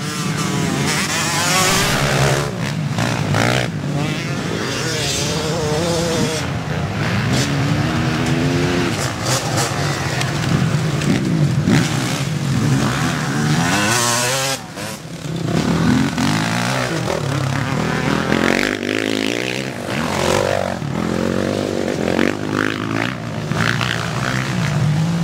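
Vintage twinshock motocross bikes racing past, several engines revving up and falling away again and again as riders accelerate out of corners, with a brief dip about two-thirds of the way through.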